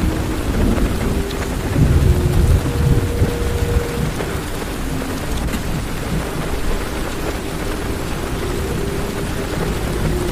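Heavy rain falling on a car's roof and windows, heard from inside the car, with a low rumble of thunder that swells about two seconds in and fades over the next couple of seconds.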